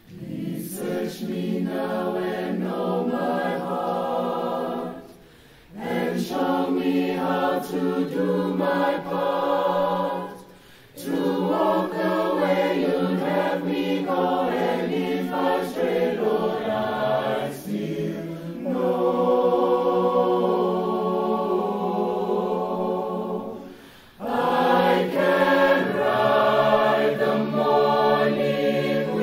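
Large mixed choir of men and women singing a cappella, in long held phrases with brief breaks between them about five, eleven and twenty-four seconds in.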